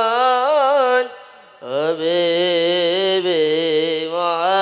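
A boy singing a sholawat (Islamic devotional song) solo and unaccompanied into a microphone, in a melismatic style with wavering ornaments on each held note. One phrase ends about a second in, then after a brief breath a new long phrase begins.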